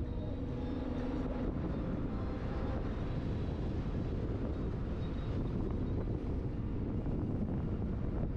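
A car driving at speed: a steady rumble of engine and tyres on the road. A faint held hum is heard about a second in.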